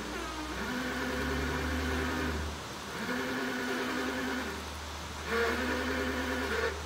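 Windshield-washer pump motor whirring in three short runs, each starting with a quick rise in pitch, as the washer switch is pressed and released. The motor runs, but the washer line is clogged, so no water reaches the nozzles.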